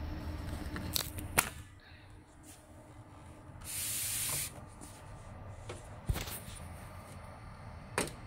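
Clicks and handling around a 3 kVA UPS as its front panel is worked. A low hum stops just after a sharp click about a second and a half in. About four seconds in there is a short hiss lasting under a second, and there are single clicks later on.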